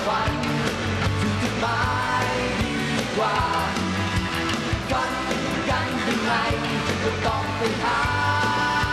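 Live pop-rock band playing, with a male lead vocal over a steady bass-and-drum beat.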